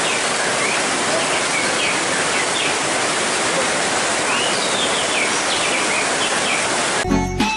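Heavy rain pouring down steadily, with white-rumped shamas (murai batu) singing short whistled phrases through it. Music cuts in abruptly near the end.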